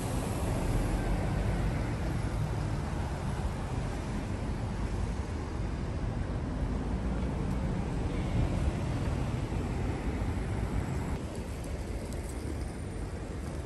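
Steady low rumble of road vehicles.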